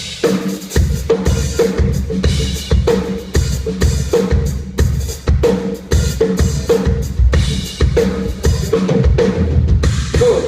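Drum kit played through a PA during a sound check: a steady groove of kick drum, snare and hi-hat, with a tom or drum ringing on under the hits.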